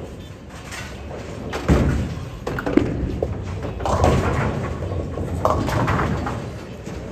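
Bowling center noise: several heavy thuds and clattering crashes of bowling balls and pins, four or so impacts a second or more apart, echoing in a large hall.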